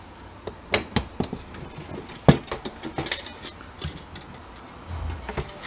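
Scattered metallic clinks and knocks of hand tools and scrap metal parts being handled while a machine is taken apart, the loudest knock a little over two seconds in.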